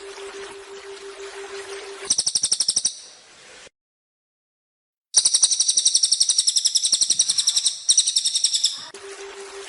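Cililin songbird singing rapid, high trills: a short trill about two seconds in, then after a brief silence a longer trill of nearly four seconds. A steady low hum with a light hiss runs under the start and end.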